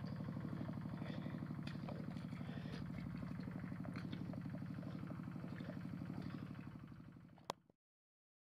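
A small engine running steadily with a fast, even pulse, with faint scattered clicks over it. It fades out near the end, followed by one sharp click and then silence.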